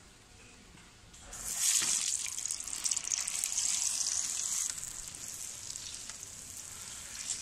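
Fritter (vada) batter frying in a kadai of hot oil: a loud sizzle starts suddenly about a second and a half in as fresh pieces go into the oil, then eases to a softer, steady sizzle after about three seconds.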